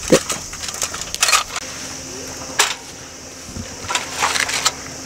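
Thin steel panels of a small folding box stove being slotted together, then a wire grill mesh set on top: a handful of sharp metal clicks, scrapes and clatters.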